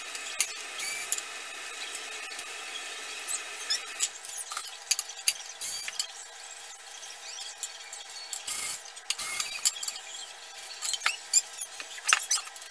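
Small cordless drill running on the hinge screws of a wooden cabinet door for about four seconds, then stopping. After that come scattered clicks and knocks of metal hinges and screws and a wooden door being handled.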